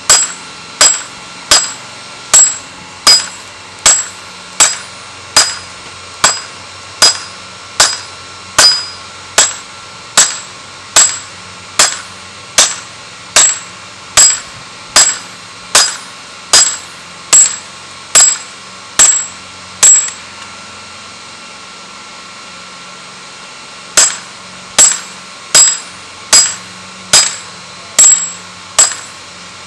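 Hand hammer striking red-hot steel of a spear head on a round block anvil: steady blows about every three-quarters of a second, each with a short, bright metallic ring. The blows stop for about four seconds past the middle, then start again.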